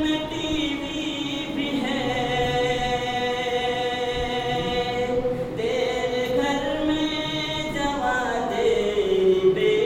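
A man's voice chanting a devotional recitation into a microphone, in long drawn-out melodic notes that bend and slide, with a downward glide near the end.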